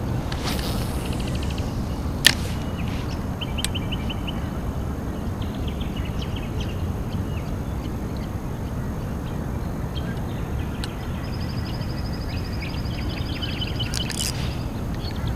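Birds calling in rapid trilled runs of short chirps, twice, over a steady low rumble; a single sharp click about two seconds in.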